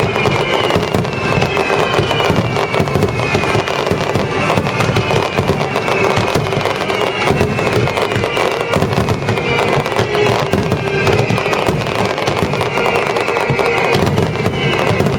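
A dense fireworks barrage, bursts and crackles going off continuously, over orchestral music played through the show's loudspeakers.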